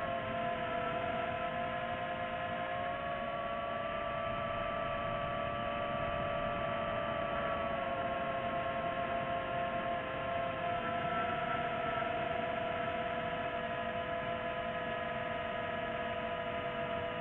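FPV quadcopter motors and propellers whining steadily, several tones at once that waver slightly in pitch as the throttle shifts.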